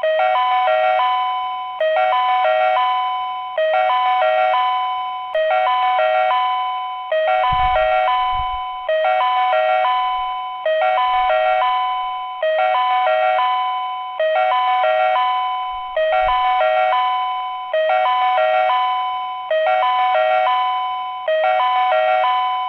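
Ohmi Railway station-platform train-approach warning chime: a short electronic chime phrase of a few alternating tones, repeating about every 1.7 seconds, each starting loud and fading. It signals that a train is approaching the platform.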